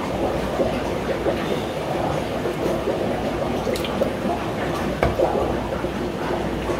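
Steady rushing, bubbling water noise of a fish room's aeration and filtration, with small splashes and drips and a few light ticks as hands handle a cichlid in a shallow bowl of water.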